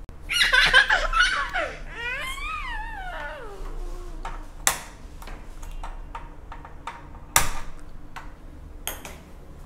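A person giggling and a voice sliding down in pitch in the first few seconds, then a few sharp clicks of a handheld gas lighter sparking as a gas stove burner is lit.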